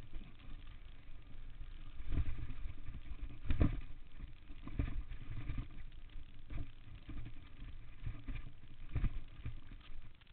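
Mountain bike descending a rough dirt trail: low wind rumble on the microphone with the bike's rattles and knocks over bumps and rocks, the sharpest about three and a half seconds in and again about nine seconds in.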